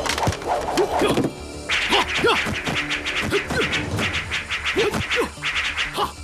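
Kung-fu fight sound effects: a rapid string of whooshes, blows and clashing hits over dramatic action music.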